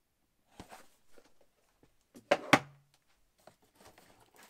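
Cardboard boxes being handled in an opened shipping carton: light taps and scrapes, with two sharp knocks in quick succession about halfway through.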